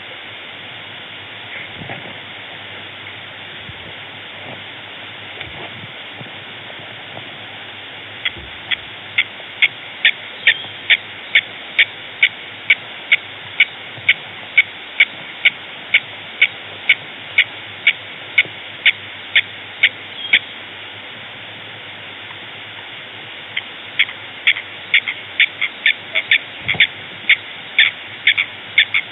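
An animal's short call repeated about two or three times a second in a long, even series that starts about eight seconds in and stops about twenty seconds in, then a second, faster series near the end, over a steady background hiss.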